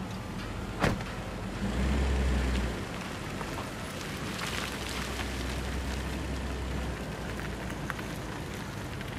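A car door shuts with a single knock about a second in. Then the Nissan Qashqai's engine runs as the car pulls away, with a low rumble that is loudest for about a second just after the door and then settles into a steadier hum.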